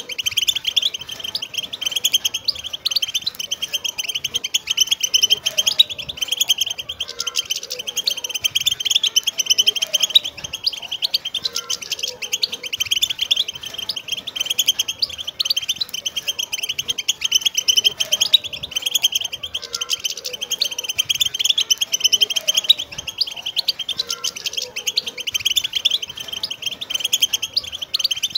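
A flock of wild European goldfinches chattering and singing together: a dense, unbroken stream of rapid high twittering.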